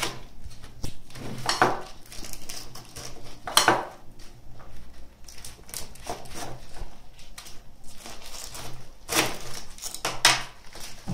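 Kitchen knife cutting into a raw head of white cabbage: irregular crisp crunching and cracking as the blade splits the dense leaves, with a few loud cracks among smaller ones.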